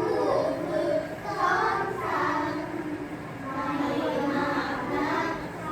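Children's voices reciting a Thai poem in a sing-song chant, the lines held and gliding in pitch with short breaks between phrases.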